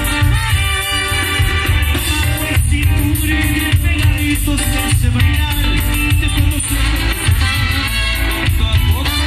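Live grupero band playing a song, with a heavy bass and drum beat, electric guitars and percussion, heard through the concert PA system.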